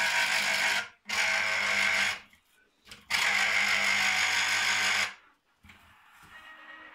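Small electric citrus juicer's motor running as an orange half is pressed onto its spinning reamer. It goes in three steady spells, about one, one and two seconds long, with short breaks between them, and stops about five seconds in.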